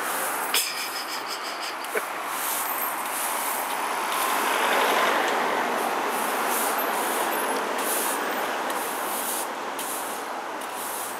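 Push broom's stiff bristles scraping over paving slabs in repeated strokes, over a steady rush of street traffic that swells about halfway through. Two sharp taps in the first two seconds.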